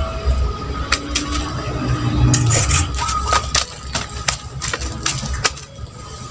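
Woven plastic sack being handled and opened: irregular crackling clicks and rustling over a low rumble.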